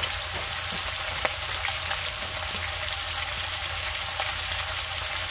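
Thick slices of pork belly sizzling in a hot frying pan: a steady frying hiss with scattered small pops of fat.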